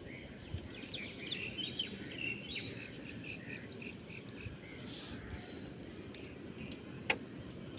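Birds chirping in a quick series of short high notes over steady outdoor background noise, with one sharp click near the end.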